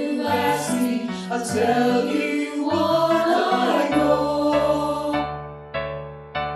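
Church choir singing a gospel song with musical accompaniment. About four seconds in the voices stop and the accompaniment carries on alone with a few held chords that fade between strokes.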